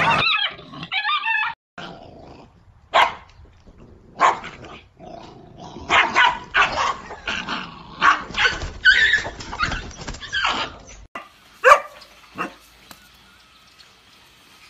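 Dogs barking and yelping in short, irregular bursts as they scuffle with chickens, the calls crowding together in the middle with one sharp loud yelp a little before the end.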